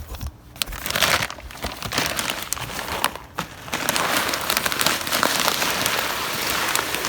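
Aquarium gravel being poured from a plastic bag: the bag crinkles and the small stones rattle and hiss out in a steady stream, with short breaks near the start and about three seconds in.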